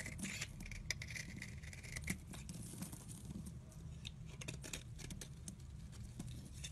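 Utility-knife blade scraping along a bar of soap, shaving it into crumbly flakes: a dense run of fine crackles and crunchy scrapes, hissier in the first couple of seconds, over a low steady rumble.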